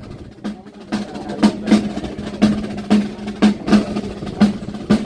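Processional side drum beaten with a stick in a steady march beat, the loudest strokes falling in pairs about once a second with lighter taps between.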